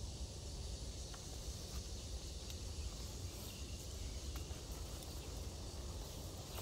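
Outdoor garden ambience: a faint, steady high chirring of insects over a low steady rumble, with a few light clicks.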